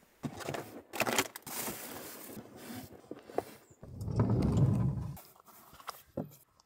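Blanket and clothing rustling as someone moves about, then a Hyundai Starex van's side door is pulled open with a low rumble lasting about a second and a half, the loudest sound, followed by a short knock.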